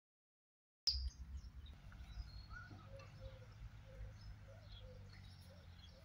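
About a second of silence, then outdoor sound starts abruptly with a click: birds chirping, including a short low note repeated about twice a second, over a steady low rumble.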